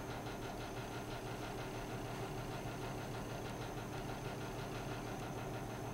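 Steady low mechanical hum of background room noise, even in level throughout.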